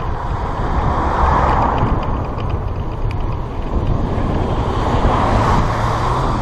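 Wind buffeting the microphone and road rumble from a moving touring bicycle, with a mechanical rattle from the bike. A broader rushing noise swells twice, about a second in and again around five seconds in.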